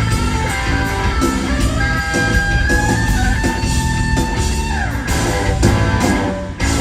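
Live rock band playing, led by electric guitar with drums. A long note is held for nearly three seconds and then slides down.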